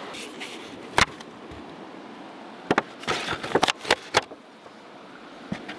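Handling sounds as a wooden fire log is moved and set up: a sharp knock about a second in, then a quick run of clicks and rustling about three to four seconds in, and a last faint knock near the end.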